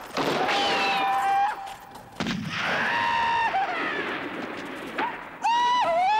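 Three gunshots about two to three seconds apart, each followed by a long whining ricochet that holds its pitch and then drops away, the last one warbling.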